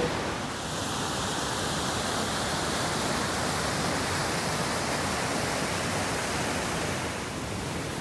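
Small waterfall on a rocky river cascading over ledges: a steady, even rush of water.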